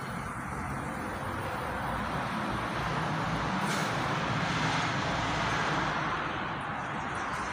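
Steady road-traffic noise that swells a little toward the middle, like a vehicle passing.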